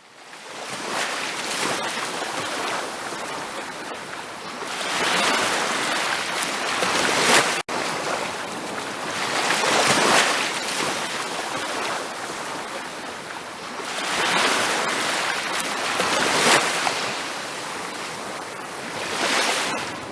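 Ocean surf breaking on a beach, the wash swelling and easing every four to five seconds. The sound cuts out for an instant about a third of the way in.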